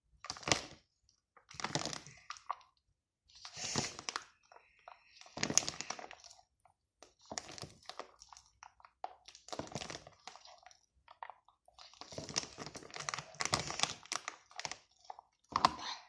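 Sticky homemade glue slime being kneaded and stretched by hand, giving irregular bouts of wet crackling and squelching as it pulls from the fingers; the slime is still sticky, just after drops of activator were added.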